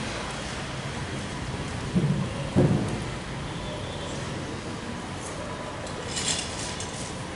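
Steady room noise picked up by the pulpit microphone, with a faint hum. Two dull thumps come about two and two and a half seconds in, the second the louder, and a short rustle comes about six seconds in.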